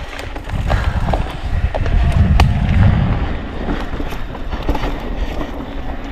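Mountain bike riding fast down a dirt trail: wind buffeting the bike-mounted microphone and tyres rolling over dirt, loudest a couple of seconds in, with sharp clicks and rattles from the bike over the bumps.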